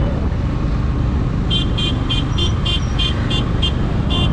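A vehicle horn toots in a rapid string of about nine short, high-pitched beeps, roughly three a second, over the second half, above a steady low rumble of road and wind noise from riding.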